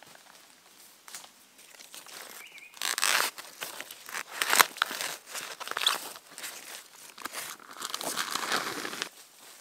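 Dry plant material being torn and crumpled by hand, in uneven crackling, tearing bursts that are loudest from about three to six seconds in and again near the end.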